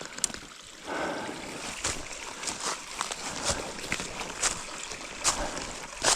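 Footsteps crunching and rustling through dry leaf litter on off-trail ground, a step about every second.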